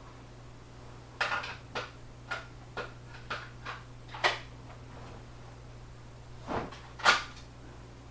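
Glock pistol and Kydex holster being handled: a quick series of sharp plastic clicks and knocks, then two louder knocks a few seconds later.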